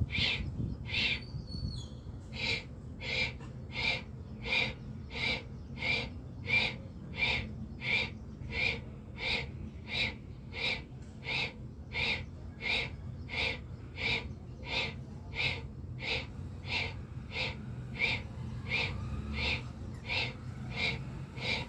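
Bhastrika pranayama bellows breathing: forceful breaths drawn in and pushed out through the nose in a steady, even rhythm of about two strokes a second.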